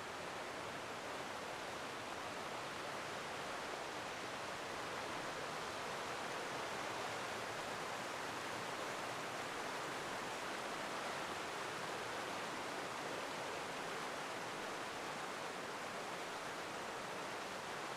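Steady rushing of a forest river tumbling over small waterfalls: an even wash of water noise that does not change.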